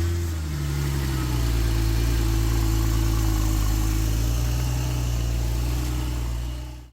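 Porsche 911 Turbo's flat-six engine idling steadily just after being started.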